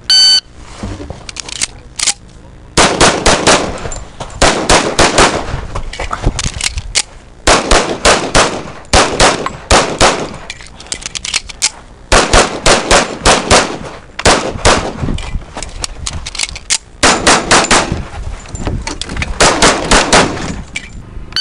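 Shot-timer start beep, then many pistol shots from a single-stack 1911 in .45 ACP, fired mostly in fast pairs and quick strings with short pauses between groups of targets.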